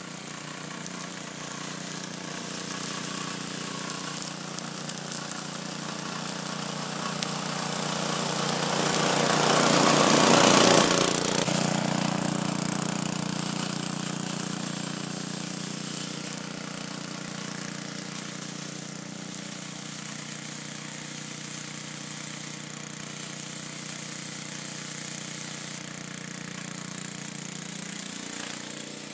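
Walk-behind gasoline lawn mower running steadily while cutting grass. It grows louder as it passes close by about ten seconds in, then fades as it moves away.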